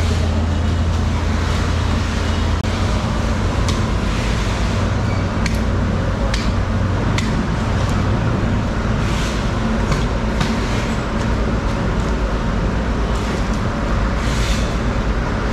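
Steady low machine rumble with a constant hiss. The deepest hum eases off about two and a half seconds in, and scattered sharp taps and clicks sound over it.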